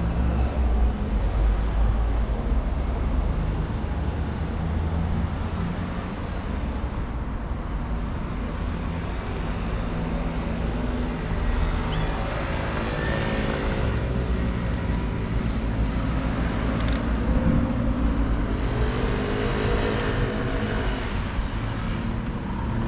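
City street traffic, with a motor vehicle's engine running close by in a steady low hum.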